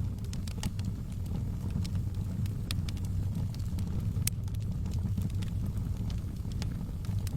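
Wood fire burning in a fireplace: a steady low rumble of flame with frequent sharp crackles and pops, the loudest pop a little past four seconds in.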